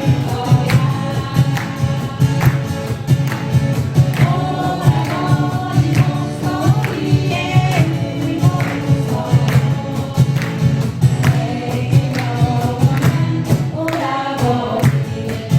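Acoustic guitar ensemble playing live with several voices singing together over a steady strummed beat.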